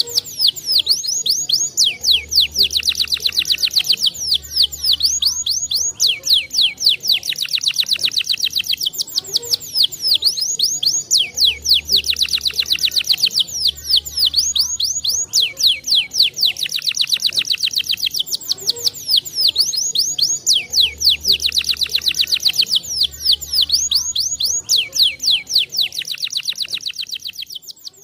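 Domestic canary singing a continuous song of fast, high trills and rolls, the same run of phrases coming round about every nine to ten seconds; it fades out near the end.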